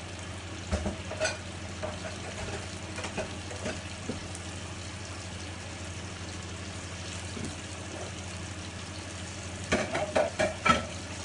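Trout fillets frying steadily in butter in a pan, with a few light knocks about a second in and a quick clatter of knocks near the end as kitchen items are handled and put down.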